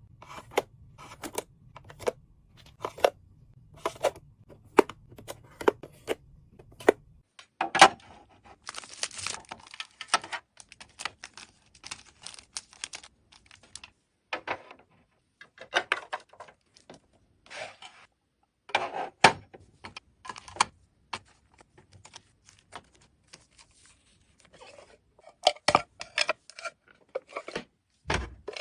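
Close-up handling sounds: a run of sharp clicks and taps over a low hum that stops about seven seconds in, then stretches of rustling, scraping noise broken by knocks, and a dull thud near the end.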